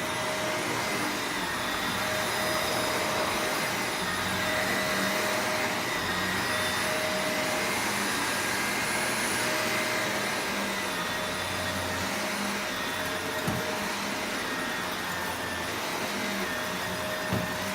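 Shark Rotator Professional Lift Away upright vacuum running steadily on carpet: a rush of airflow with a steady motor whine, and two small knocks in the second half.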